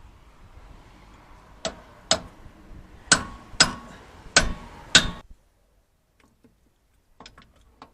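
Six sharp metal knocks a half-second to a second apart, over a faint hiss: tools striking parts of a three-wheeler's gearbox during disassembly. A few faint clicks follow near the end.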